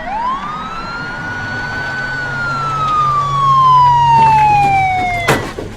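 Police siren wailing: one long sweep that rises quickly, then slowly falls for about five seconds, ending with a sharp knock near the end.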